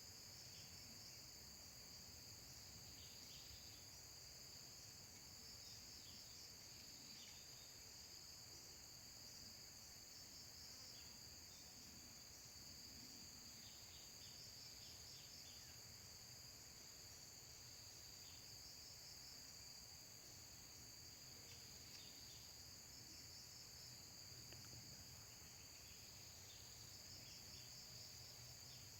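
Faint, steady high-pitched drone of crickets or cicadas in several continuous bands, with short high chirps scattered throughout.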